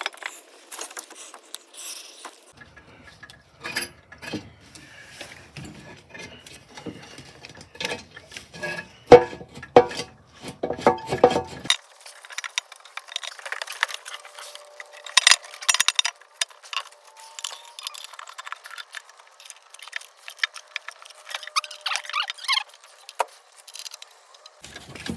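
Irregular metallic clinks, knocks and rattles as the old oil pan is worked free from the engine and handled, with the loudest knocks about nine seconds in and again around fifteen seconds.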